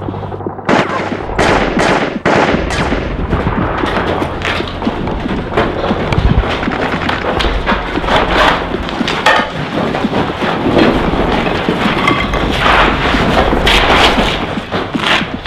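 Gunfire sound effects from a film firefight: many shots fired irregularly, some in quick clusters, with the occasional heavier bang.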